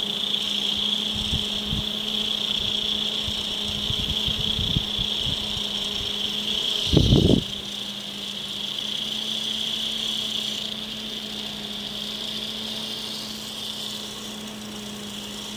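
A weak 12 V DC cooling fan from a switch-mode power supply, running with a steady hum and airy whine while its speed ramps up and down. This is the sign of a worn, binding bearing, which the owner suspects is making the power supply overheat and cut out. A few low knocks come in the first few seconds, with a louder thump about seven seconds in, and the fan gets a little quieter after about ten seconds.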